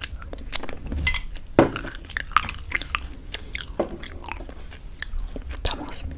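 Close-miked chewing of a mouthful of thick yogurt with homemade granola, with irregular crunches.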